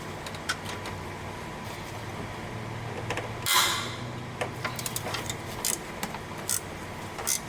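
A wrench working the top nut of the power steering pump's belt tensioner: scattered metallic clicks and taps, with one short, louder scrape about three and a half seconds in.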